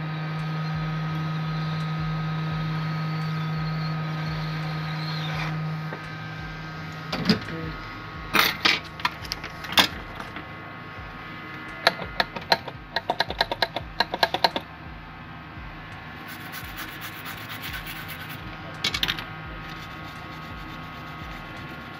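Steady whir of a hot-air rework station's blower, used to solder a replacement capacitor onto a laptop motherboard; it cuts off abruptly about six seconds in. After that come scattered groups of sharp metallic clicks and quick rattling runs.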